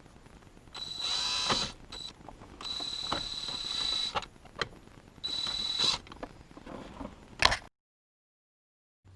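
Electric drill running in three short bursts, its motor giving a steady high whine, drilling out the rivets that hold the shifter. A sharp click comes near the end.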